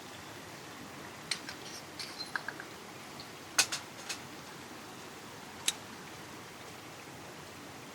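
A scatter of small clicks and light clinks, some with a brief high ring, from camp coffee gear being handled; the sharpest click comes near the middle.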